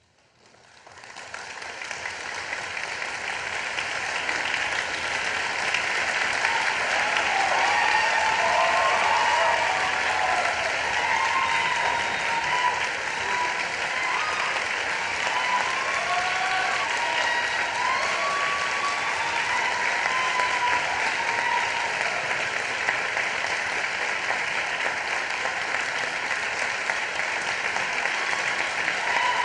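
Concert hall audience applauding. The applause starts from silence, swells over the first few seconds and then holds steady, with a few cheers mixed in.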